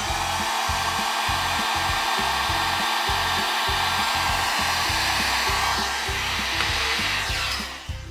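Electric heat gun blowing steadily, shrinking heat-shrink tubing over a wire splice; it cuts off near the end.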